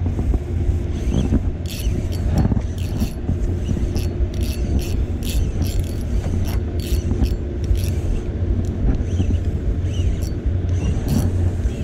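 Versus Carbontech 4000 spinning reel being cranked in while playing a hooked fish, with irregular clicks from the reel. A steady low rumble runs underneath.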